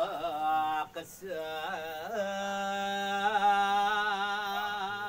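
A man chanting a Balinese Hindu devotional chant in long held notes with wavering, ornamented pitch, with a short pause for breath about a second in.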